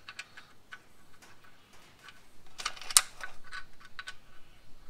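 Light metallic clicks and ticks of nuts being handled and started by hand on the studs of a quick-change diff's rear cover, with a sharper clatter about three seconds in.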